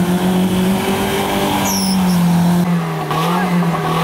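An off-road 4x4's engine revving hard, held at high revs with slight rises and dips in pitch, as it pushes through deep water and mud.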